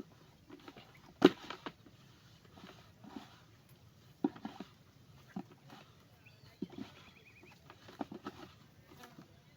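Irregular knocks and wet handling noises of hands working a cassava mash mixed with water in a container, the loudest knock a little over a second in. A faint short chirp sounds near the middle.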